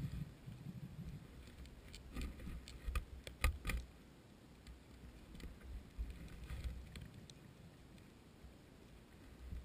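Underwater sound heard from inside a GoPro's waterproof housing: a dull rumble of water movement with a cluster of sharp clicks and knocks about two to four seconds in, then a quieter, steadier stretch.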